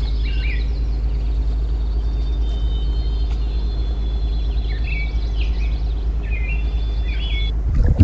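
A motor's steady low drone runs throughout, while a small bird chirps in short repeated phrases at the start and again in the second half.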